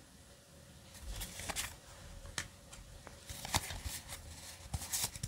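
Yu-Gi-Oh! trading cards being leafed through by hand, card sliding over card: faint papery swishes and small snaps, starting about a second in and coming every second or so.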